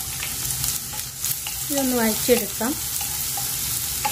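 Chopped shallots sizzling steadily in hot oil in a nonstick pan, with the scrape and tap of a wooden spatula stirring them as they start to sauté.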